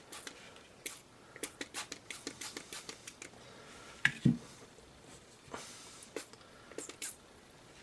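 Scattered light clicks and taps from handling the parts of a field-stripped Glock 19 pistol on a tabletop, with a duller knock about four seconds in.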